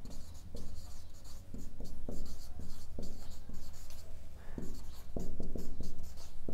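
Marker pen writing on a whiteboard by hand: a quick run of short strokes and taps as words are written out.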